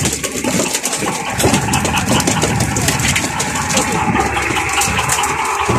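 A fishing boat's engine idling steadily, with many small clicks and knocks over it.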